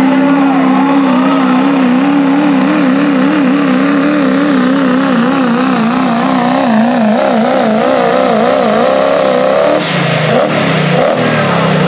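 Diesel pulling truck's engine at full power under the load of a pulling sled, its note wavering quickly up and down. About ten seconds in the pull ends: the engine note drops and a high turbo whistle falls away.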